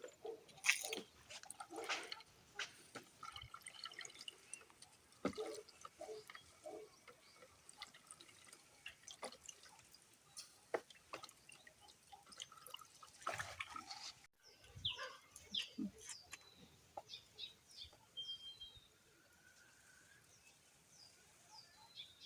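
Irregular drips, small splashes and clicks of water being handled. After a sudden break about two-thirds of the way through, short bird chirps.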